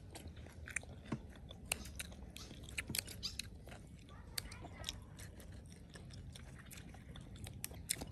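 Soft, scattered clicks and crunches of eating at the table: kitchen scissors snipping grilled beef slices onto a plate, along with chewing.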